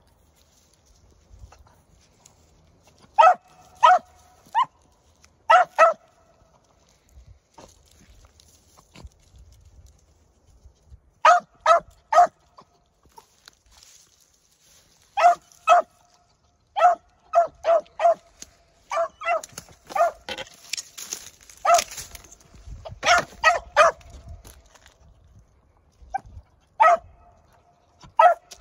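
A young beagle giving tongue alone on a rabbit's track, a sign she is on the scent. Her short barks come in bursts of two to four with pauses between, and they come thickest through the middle.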